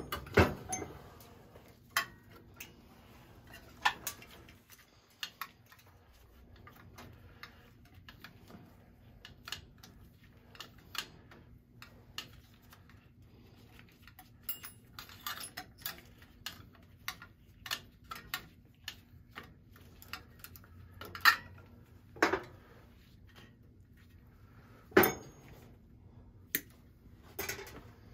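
Hand pliers clicking and snipping while thin thermostat wires are worked: a run of irregular sharp metallic clicks, with a few louder snaps in the last third, over a faint steady hum.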